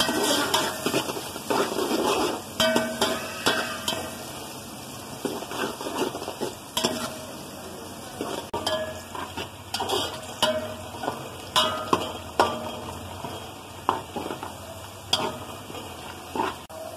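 Sliced onions sizzling in hot oil in a metal pot while they fry towards brown. A spoon stirs them, scraping and knocking against the pot many times at irregular intervals.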